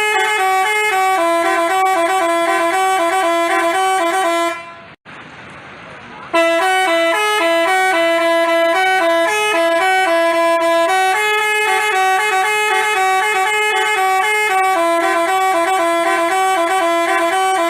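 Telolet 'basuri' musical bus horn playing a tune in clean stepped notes. It stops about four and a half seconds in and starts a new tune about six seconds in.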